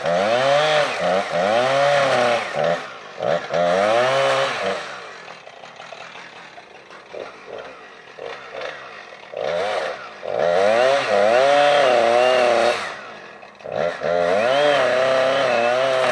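Chainsaw cutting wood in several full-throttle bursts, its engine pitch sagging and recovering under load, dropping back to a lower idle for a few seconds in the middle.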